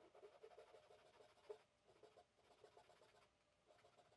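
Faint sawing: a Japanese pull saw cutting hard maple in runs of quick, short strokes, with brief pauses between the runs.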